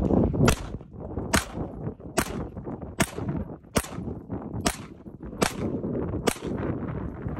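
Ruger SR1911 9mm pistol firing eight shots in a steady string, about one every 0.8 seconds, each a sharp crack with a short echo.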